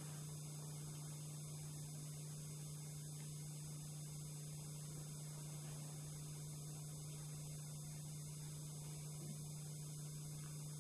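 Steady electrical hum with a faint hiss, unchanging throughout: mains hum on an old recording.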